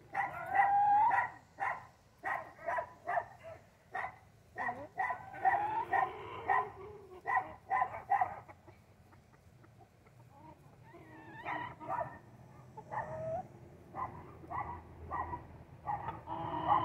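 Short, pitched animal calls repeating two or three times a second, with a brief lull about nine seconds in before they resume.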